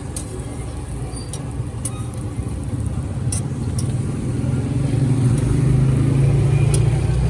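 Motor vehicle engine running close by in street noise, its low hum swelling to its loudest near the end, with a few short sharp clicks scattered through.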